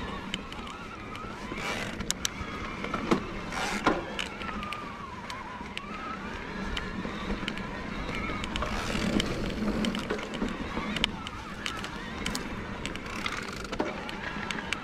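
Bosch Performance Line CX mid-drive motor of an e-mountain bike whining under load on a climb, its pitch wavering up and down as it works. Under it runs the rumble of the bike on the dirt trail, with several sharp knocks.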